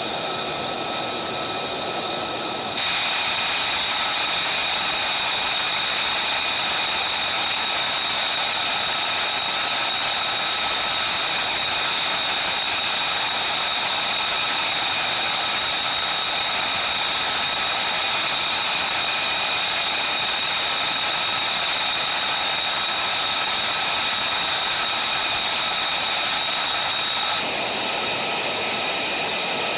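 Jet engine running with a steady high-pitched turbine whine over a loud rush of noise; the sound changes abruptly about three seconds in and again near the end.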